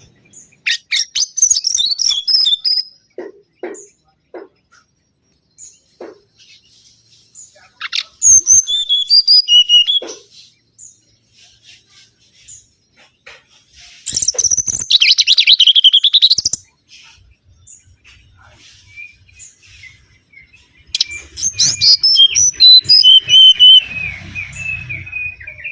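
Mangrove whistler singing: four loud phrases of clear whistled notes a few seconds apart, the notes sweeping up and down in pitch, the last phrase trailing off in a run of quick notes.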